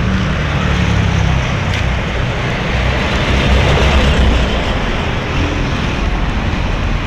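Engine rumble and road noise heard from inside a moving passenger vehicle, steady and growing a little louder for a moment midway.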